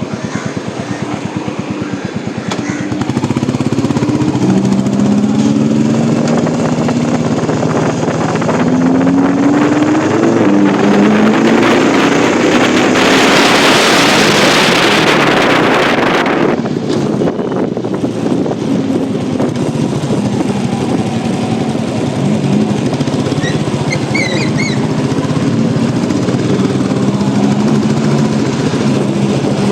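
Lamborghini Huracán Evo Spyder's V10 engine revving in rising sweeps, then a loud rush of noise lasting about three seconds around the middle as the car passes close. Steadier engine running follows.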